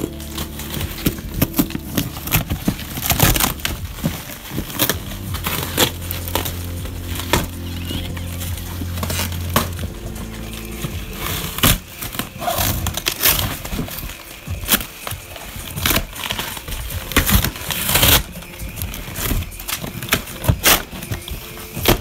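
Corrugated cardboard and packing tape being torn open by hand, in many quick rips and crackles.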